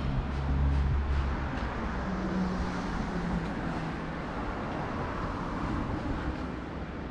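City street traffic: cars and a small truck pass through the intersection with a steady engine hum and tyre noise. It is loudest in about the first second.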